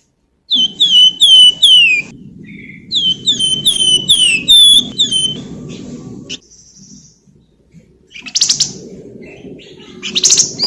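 Flamboyan (wergan Jawa, Javan fulvetta) singing clear, flute-like whistles. Each note slides downward, in two quick runs of several notes, and two short harsh chattering bursts follow later on.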